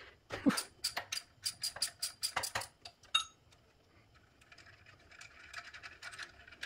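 Hand ratchet clicking in quick runs while bolts on the cylinder head are undone, with one ringing metallic clink about three seconds in. Fainter, faster clicking follows near the end.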